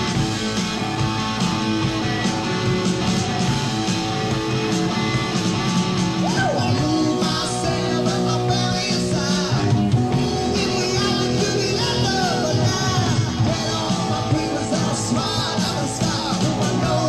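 1970s rock band recording played from vinyl: electric guitar, bass and drums play steadily, and a lead voice comes in singing about six seconds in.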